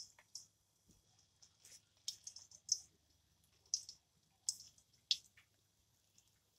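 Hot oil crackling and popping in short, irregular pops around urad and moong dal batter dumplings deep-frying in a kadhai.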